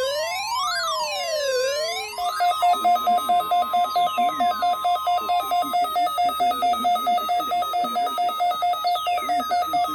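Electronic siren sweeping up and down about every one and a half seconds over a steady high tone. About two seconds in it switches to a rapid two-note pulsing alarm, about four pulses a second, with falling whistle-like glides over it. The steady tone stops about halfway through.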